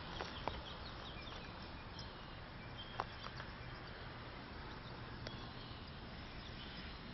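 Quiet outdoor ambience: a steady low background hiss with faint scattered bird chirps and a few soft clicks, the clearest about three seconds in.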